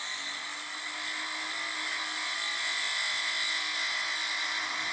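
Tungsten welding electrode being ground to a point on a small diamond wheel spun by a Foredom flex-shaft handpiece, turned against the wheel as it sharpens: a steady high-pitched grinding hiss with a faint hum of the tool beneath.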